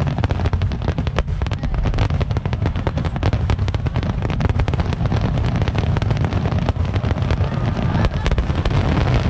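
Aerial fireworks shells bursting overhead in quick succession: many overlapping bangs and crackles over a continuous deep rumble.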